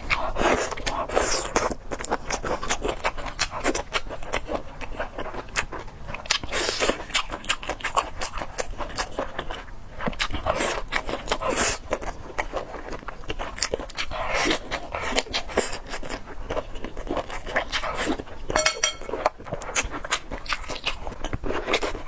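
Close-miked eating of spicy squid tentacles: continuous wet chewing and mouth smacks with many irregular clicks, louder in bursts every few seconds.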